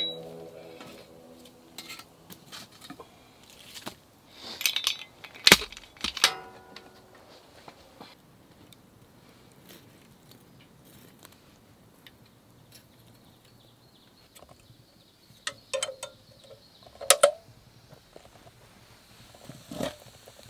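Scattered metal clinks and knocks of a small folding shovel and a steel percolator coffee pot against the fire's stones and coals. They come in short clusters: one about a quarter of the way in, another near three-quarters, and a last one near the end, with quiet between.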